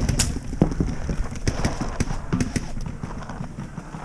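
A paintball player running over forest ground: an irregular series of footfall thuds and crunches with sharp clicks from gear, thinning out toward the end.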